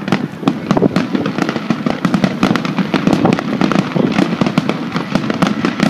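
Aerial firework shells bursting in a rapid barrage: dense, overlapping bangs and crackles, several a second, over a continuous rumble.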